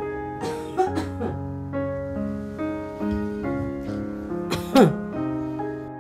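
Slow, soft piano background music with sustained notes. About five seconds in, a short, loud sound slides steeply down in pitch over the music, with a fainter falling sound about a second in.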